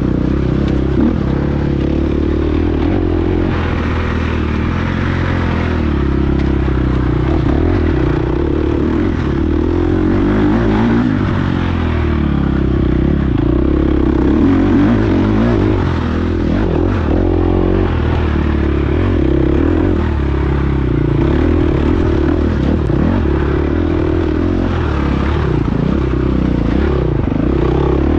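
KTM 350 XC-F four-stroke single-cylinder dirt bike engine running hard on the trail, its revs rising and falling as the throttle is worked, heard from the rider's chest.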